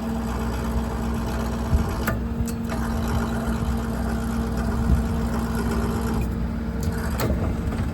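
A service-body crane slewing side to side under power over a steady engine drone and a constant hum. The crane's drive adds a whirring whine from about two seconds in that stops about six seconds in.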